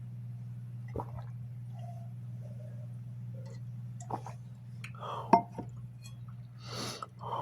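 Drinking glass knocking and clinking a few times, with one sharp clink a little over five seconds in, while cold water is being drunk; a short hissing rush follows near the end. A steady low hum runs underneath.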